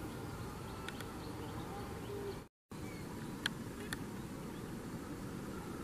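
Quiet rural outdoor background: a steady hiss with faint birds and insects, cut by a brief dropout about two and a half seconds in, and two faint ticks shortly after.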